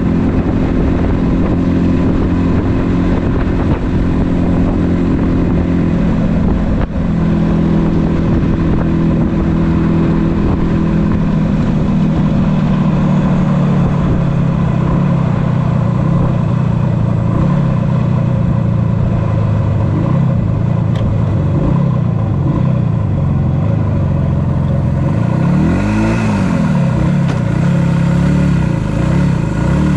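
1976 Yamaha RD400's two-stroke parallel-twin engine running under way, with a brief drop in the engine note about seven seconds in, like a gear change. From about halfway the note falls as the bike slows toward a stop, and a quick rev blip rises and falls near the end.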